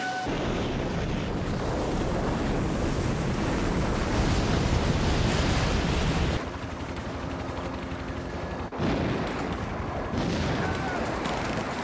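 Film action sound effects: the dense rushing roar of a rotary snowblower and a rumbling avalanche. The roar drops abruptly about six seconds in and breaks off briefly near nine seconds at hard edits.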